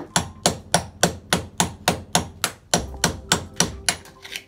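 Hammer striking a chisel held against a concrete wall, chipping a hole in the concrete: a steady run of sharp metal-on-metal blows, about three to four a second, stopping shortly before the end.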